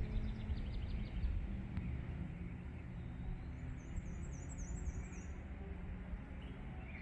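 Songbirds singing over a steady low rumble: a short trill in the first second, then a quick run of about eight high, thin chirps around the middle.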